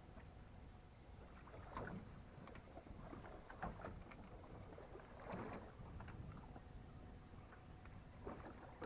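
Faint lapping and slapping of small waves against a boat's hull every second or two, over a low, steady rumble.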